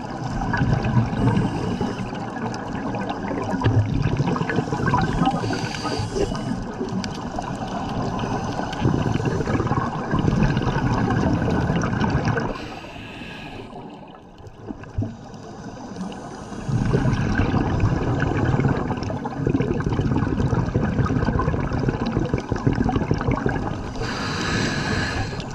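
Scuba regulator breathing heard underwater: long stretches of crackling exhaust bubbles, broken about halfway through by a quieter lull of a few seconds, with short hisses of inhalation between breaths.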